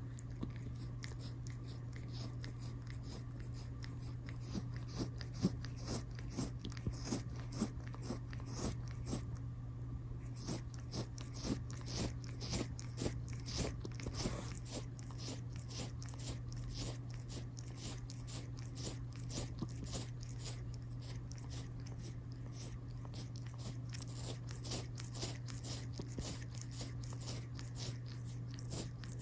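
Calico cat licking a person's skin close to the microphone: a steady run of quick, wet clicking licks, loudest between about five and fifteen seconds in, over a steady low hum.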